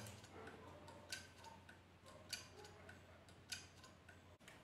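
2.5-inch Toshiba laptop hard drive spinning with a low steady hum, its read arm giving faint sharp clicks at an even pace, about one every 1.2 seconds. The clicking is a sign of the fault: the head is scratching the platter surface after a home platter swap that left dirt on the disc.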